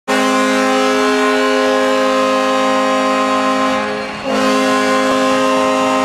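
Ice hockey arena goal horn blowing a loud, steady chord of several notes at once: one long blast of about four seconds, a brief drop just after four seconds, then a second blast.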